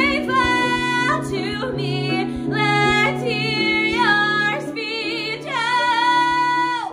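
A woman belting several long held notes with wide vibrato and sliding pitch, over sustained backing chords. The last note is cut off near the end.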